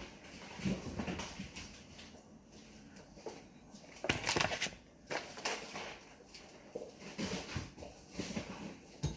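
Scattered household handling noises: light knocks and thuds, with one brief rustling hiss about four seconds in, as meat packages are fetched from a refrigerator.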